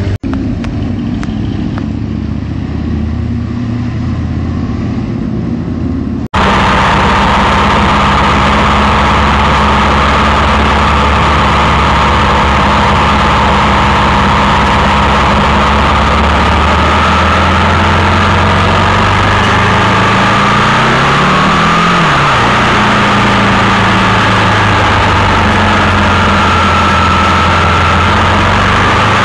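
Sport motorcycle engine running close by. After an abrupt cut about six seconds in, a steady, loud drone of sport-bike engines under way with a constant rushing noise, the engine pitch rising and falling once about three-quarters of the way through.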